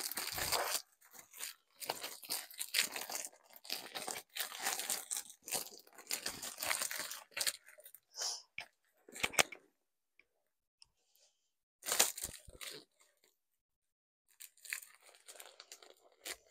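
Foil number balloon crinkling and rustling as it is handled, in irregular bursts, with a quiet stretch of a few seconds after the middle.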